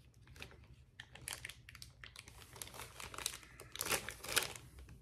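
Irregular crinkling and small clicks of things being handled, louder about four seconds in.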